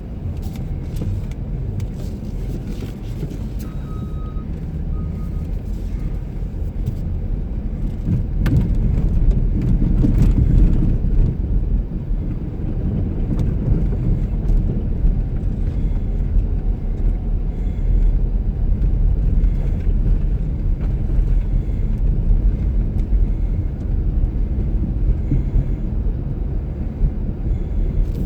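Blizzard wind buffeting the microphone: a steady, heavy low rumble that swells about eight seconds in.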